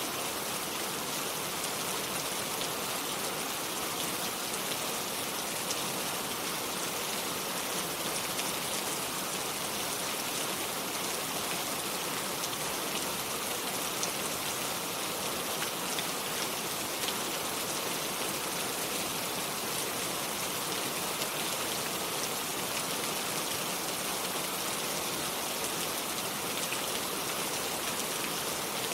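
Steady rain falling without thunder, a dense even hiss with fine drop patter throughout.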